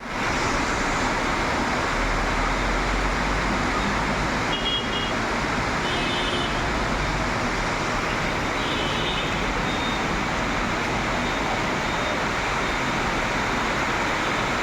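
Heavy rain pouring steadily, a dense even hiss, with a few faint high chirps in the middle and a low rumble for a few seconds early on.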